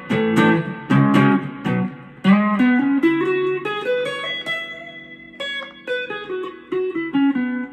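Strat-style electric guitar with Fender Hot Noiseless pickups, played clean through a Boss Katana 150 amp with the pickup selector in the first position. Picked single notes and chord shapes ring on with the strings sustaining, with a slide up into a note a little past two seconds in.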